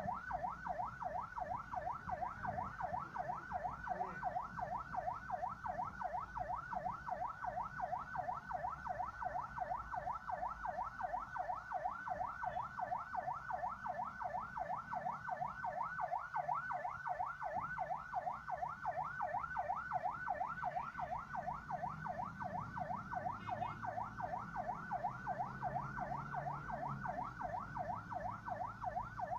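Ambulance siren on its fast yelp setting: a rapid rising wail repeating about three to four times a second without a break, over a low rumble of road noise.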